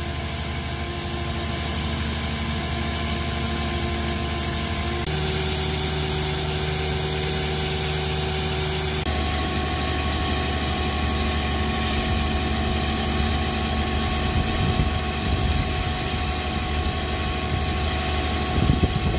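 Excavator engine running steadily with a whine from its hydraulics as it powers a rock-splitter attachment set into a drill hole in the rock. The pitch of the whine shifts twice, about five and nine seconds in; there are no hammering blows.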